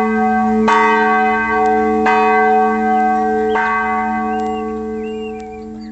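Church bell struck three times, about a second and a half apart, each stroke ringing on in several steady tones; after the last stroke the ringing slowly fades away.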